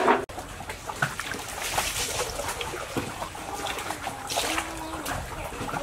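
Rice being washed by hand in a large metal basin of water: hands stirring and rubbing the grains, with the water sloshing, splashing and trickling irregularly. This is the rice-washing step in making Khmer rice noodles.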